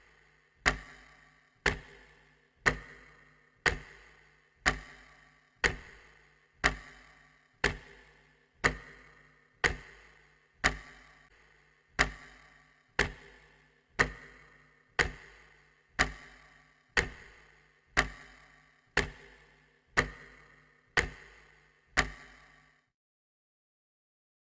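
Clock ticking, one sharp tick a second, about twenty-two ticks in all, then it stops near the end.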